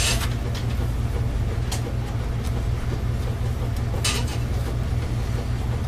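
A steady low hum, with three brief handling noises of speaker parts: one at the start, one just under two seconds in and one about four seconds in.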